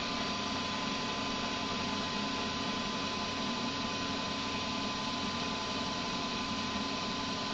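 Comet 3KVHD milling machine running at a steady speed, its spindle motor humming with a constant high whine over even mechanical noise.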